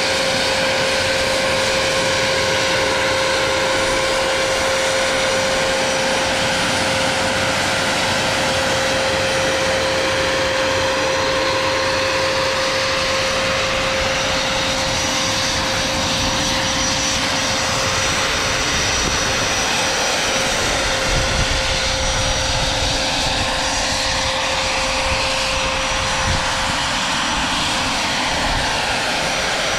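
Vario MD600N radio-controlled scale helicopter's model turbine engine running steadily: a constant whine over an even rushing noise, sweeping gently in pitch during the last few seconds.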